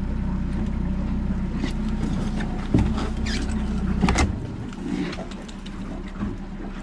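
Honda outboard motor running steadily at trolling speed. Two sharp knocks and some clatter come about three and four seconds in, as a fishing rod is pulled from its holder after a strike, and the engine hum then drops away.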